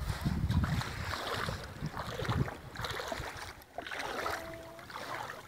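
Shallow seawater sloshing and lapping as a hand is dipped into it, with wind gusting on the phone's microphone in irregular low rumbles.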